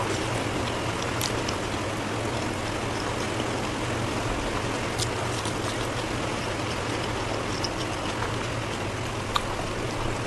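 Steady hiss of background noise, with a few faint, sharp clicks of eating: one about a second in, a small cluster near the middle and one near the end.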